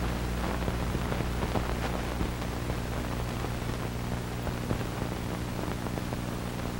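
Steady hiss with a low electrical hum and faint crackle: the background noise of an old film soundtrack transfer, with no program sound on it.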